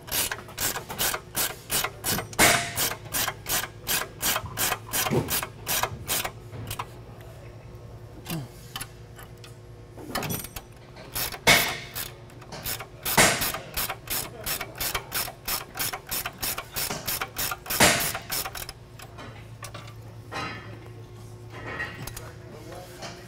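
Ratchet wrench clicking in quick runs of about three clicks a second, pausing now and then, as half-inch Stover lock nuts are run down on the frame-plate bolts.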